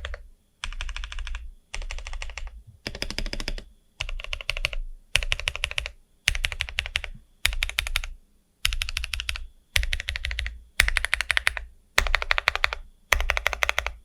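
Custom mechanical keyboard being typed on in quick bursts of fast keystrokes, about one burst a second, with short pauses between.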